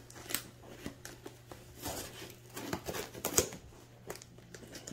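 Scissors cutting open a cardboard shipping box: irregular snips and clicks, the sharpest about three and a half seconds in.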